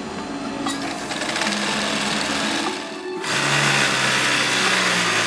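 Sewing machine running at speed, its bobbin winder spinning thread onto a bobbin, with background music. The machine noise gets louder about three seconds in.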